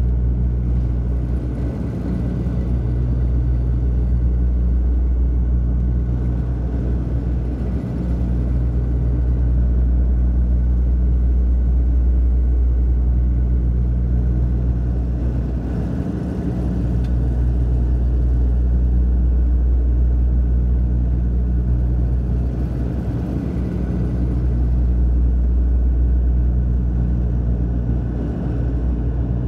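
Propeller airplane in flight, heard from inside the passenger cabin next to the propeller: a loud, steady low drone with a deep propeller hum and rushing air, slowly swelling and fading every several seconds.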